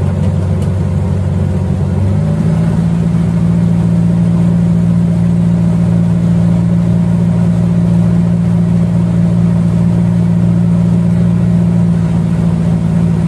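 Boat engine running steadily under way. About two seconds in, its pitch steps up and holds higher as the throttle opens.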